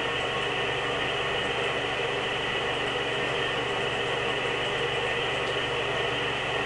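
Steady mechanical hiss with a low hum and faint steady tones, unchanging throughout, of the kind a fan or white-noise machine makes.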